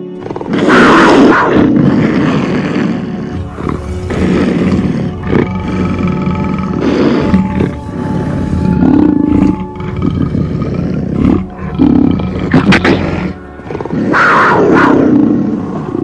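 A big cat roaring and growling again and again, a loud call every second or two, over background music with steady held tones.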